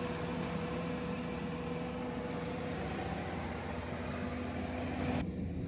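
Compact track loader's engine running at a steady speed, a steady hum under a noisy rush, dropping away abruptly about five seconds in.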